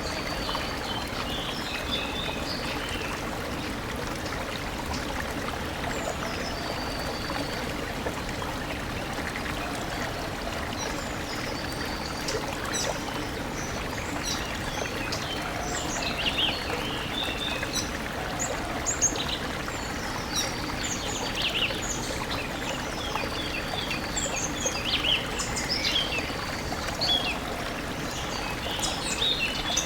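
A stream flowing steadily, with small birds chirping and whistling over the water, the calls growing more frequent in the second half.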